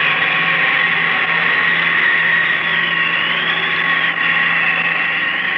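Radio-drama sound effect of the time machine in flight: a loud, steady electronic hum of several held tones, with a higher tone that starts to waver about halfway through.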